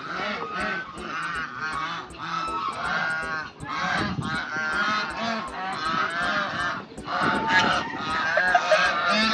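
A flock of domestic waterfowl calling continuously, many overlapping voices at once.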